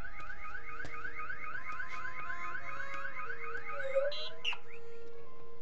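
Car alarm sounding: a fast run of rising electronic chirps, several a second, that stops about four seconds in and is followed by a brief click and a short sliding tone.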